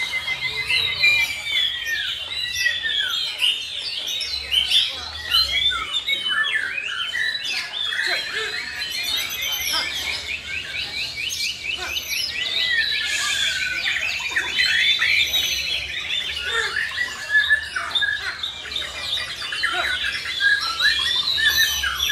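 Several white-rumped shamas singing at once in a dense, overlapping stream of whistles, slurs and chatter, with a long fast trill of repeated notes about ten seconds in.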